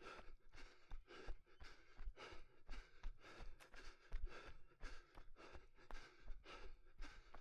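A runner breathing hard and rhythmically, about two breaths a second, with low thuds of footfalls underneath.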